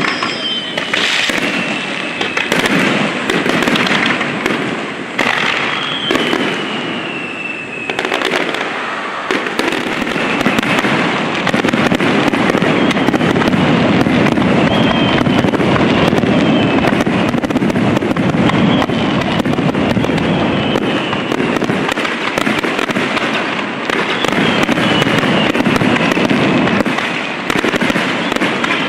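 Japanese fireworks display firing a rapid star mine barrage: shells launch and burst in quick succession with sharp bangs and crackle. The barrage becomes a dense continuous rumble of bursts after about ten seconds, with a few thin whistles falling in pitch.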